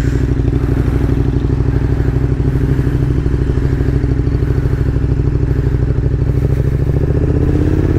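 Motorcycle engine running steadily while riding, with an even pulsing beat; its pitch rises slightly near the end as the bike picks up speed.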